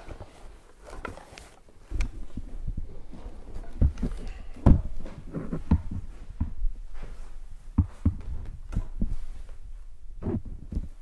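Irregular low thumps and knocks with rustling, from a person shifting on and climbing off a wooden chair and setting a small accordion down on its seat. The loudest thump comes about halfway through.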